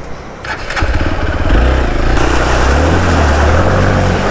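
Hero Xpulse 200 4V's single-cylinder engine revving hard as the motorcycle pushes through a deep river crossing. The engine comes in loud about a second in, and a steady hiss of churned water joins it about two seconds in.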